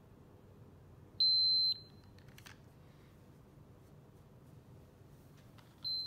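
Handheld blood glucose meter giving one loud, steady, high-pitched beep lasting about half a second, the signal that its test strip has taken up the blood sample from the cat's pricked ear. A second beep starts near the end.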